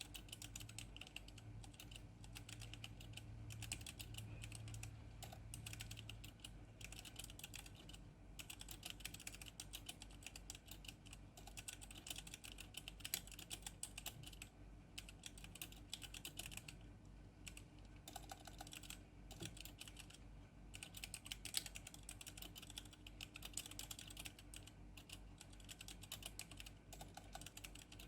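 Geek GK64 hot-swappable mechanical keyboard being typed on, a fast, continuous stream of keystroke clicks with a few brief pauses.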